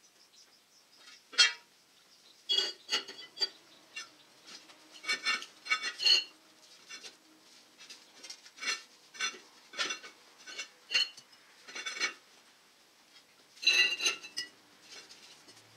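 Steel spacer spools on a John Deere 630 disc gang rod being slid along the rod and pulled off the end: irregular metallic clanks and clinks that ring briefly. The loudest clanks come about a second in and again near the end.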